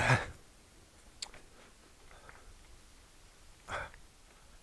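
Faint running noise of an e-bike on a rough towpath, broken by a short loud noisy clatter at the start, a single sharp click about a second in, and another short noisy burst near the end.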